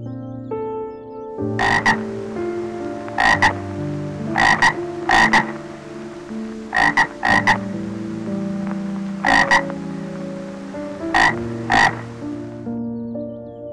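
A frog croaking in short, sharp calls, mostly in pairs, about a dozen over ten seconds. Soft background music plays underneath.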